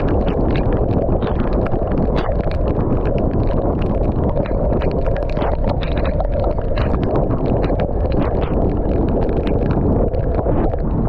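Heavy wind rushing over the microphone of a motorcycle riding at about 70 to 80 km/h in heavy rain, with the engine running underneath and many sharp ticks of raindrops striking close to the microphone.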